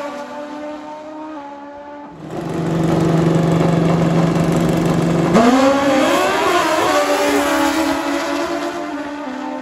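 Two drag-racing motorcycles at the line, engines held at a steady high rev for about three seconds, then launching: the engine pitch climbs, dropping back and climbing again at each quick gearshift as they pull away down the strip.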